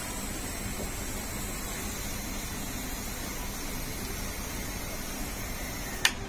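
Steady hiss and hum of room background noise while chocolate topping is squeezed onto a waffle, with one sharp click about six seconds in.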